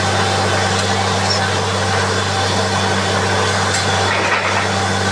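Truck-mounted borewell drilling rig running steadily: a constant engine drone with a dense rush of air and water blowing out of the bore.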